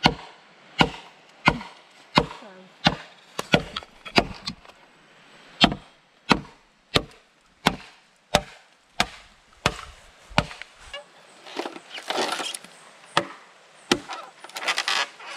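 Bamboo being chopped with a blade: a steady run of sharp woody chops, about one every two-thirds of a second, with a short pause about five seconds in. Near the end the chops thin out, and there are two short bursts of rustling.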